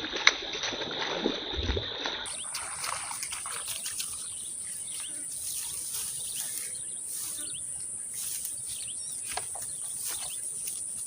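Steady high-pitched insect trilling in the background, with many faint short ticks. There is one sharp click near the start, and about two seconds in the trill changes to a higher pitch.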